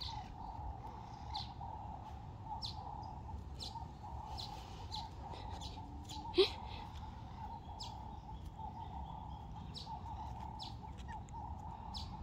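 Garden birds chirping: short high chirps repeated every half second to a second, over a steady background hum. One short sharp squeak about six seconds in is the loudest sound.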